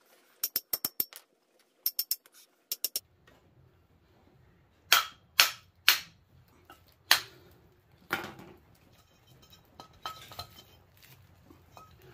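Three quick runs of light metallic clicks, then four sharp hammer blows on a steel wheel hub and brake rotor assembly, knocking the old rotor free of the hub. A duller knock and faint clinking of metal parts follow.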